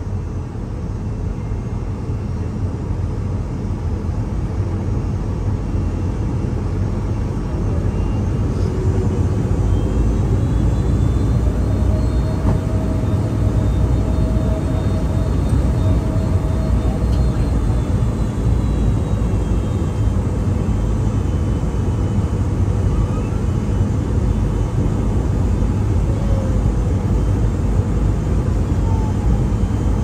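Cabin noise of a Boeing 757-200 taxiing after landing: a steady low rumble that builds over the first several seconds and then holds. A faint engine whine rises and falls in pitch in the middle.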